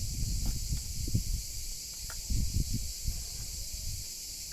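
Soft, irregular knocks and rustles of product packaging being handled, over a steady high hiss.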